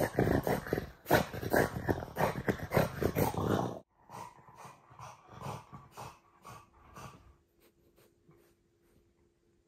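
French bulldog grumbling in quick pulses while being cuddled. The sound stops abruptly about four seconds in, and softer grumbles and breaths follow, fading out near the end.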